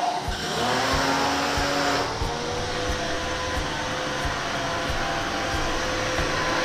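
Kawasaki KX 302 corded electric pressure washer running, its motor and pump making a steady hum with a hiss of spray; the tone shifts about two seconds in.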